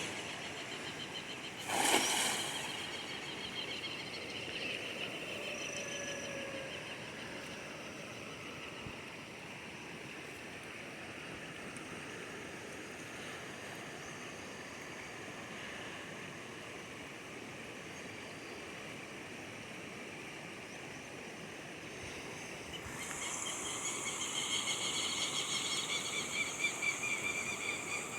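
Outdoor ambience of birds singing over a steady rush of water, with one short sharp noise about two seconds in. Both the rushing and the birdsong grow louder near the end.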